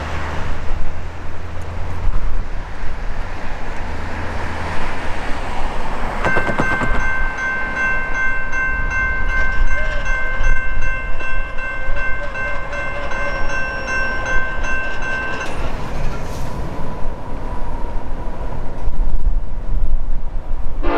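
Railroad grade-crossing warning bell ringing steadily with a high, metallic tone, starting abruptly about six seconds in and stopping about nine seconds later, over a low rumble.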